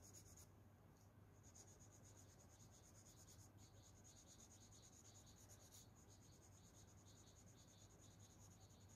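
Faint scratching of repeated colouring strokes on paper, over a low steady hum; otherwise near silence.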